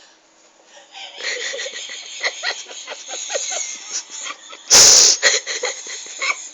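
Stifled, breathy giggling, a quick run of short laughs about five a second that starts about a second in, with a sudden loud burst of noise near the middle.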